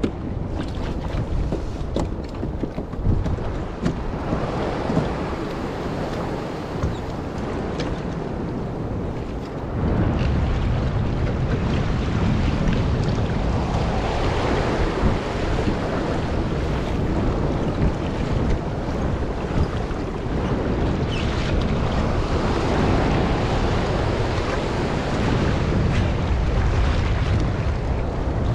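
Wind buffeting the microphone over the wash of choppy sea waves, a steady rushing noise that grows louder about a third of the way in.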